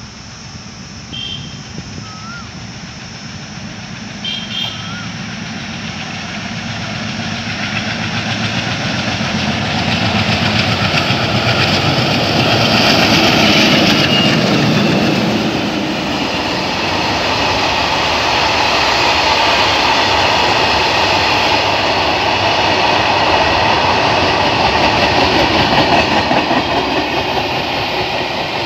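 A freight train's WDM3F diesel locomotives, with ALCO-type engines, approach, get louder and pass about 13 seconds in, their engines chugging. A steady rumble and rattle of freight wagons on the rails follows.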